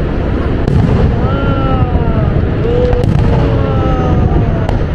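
Aerial fireworks shells bursting: a continuous low rumble of booms with a few sharp cracks.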